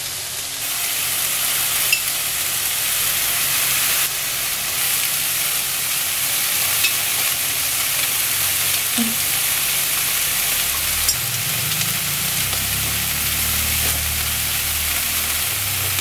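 Cubes of hanwoo beef and green onions sizzling steadily on an electric grill pan, with a few faint clicks.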